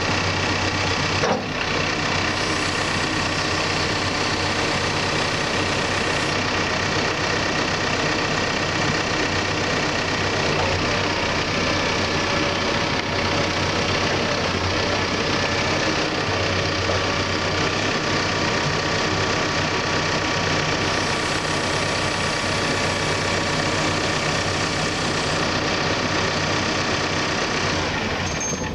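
Cat 420F backhoe's four-cylinder diesel engine idling steadily, with one short knock about a second in.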